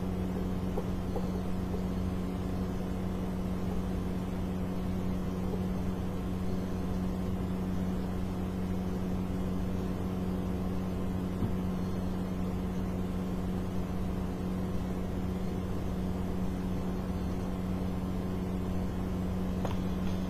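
Steady hum of a small electric motor or appliance running, a constant low drone with overtones at an even level.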